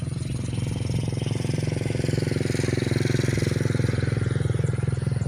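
A small engine running steadily with a fast even pulse, growing somewhat louder through the middle.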